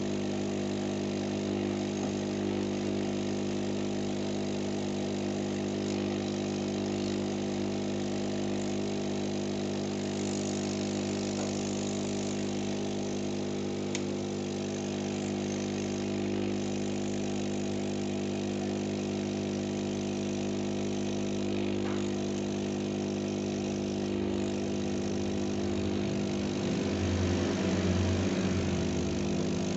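A steady machine hum, low and even in pitch, swelling slightly near the end, with a faint click about halfway through.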